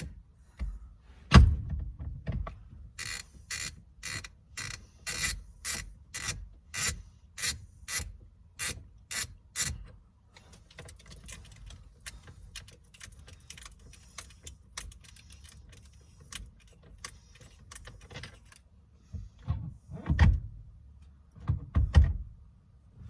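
Ratchet wrench clicking in a quick series of strokes on the steering wheel's center bolt, then faint rattling and two dull thumps near the end.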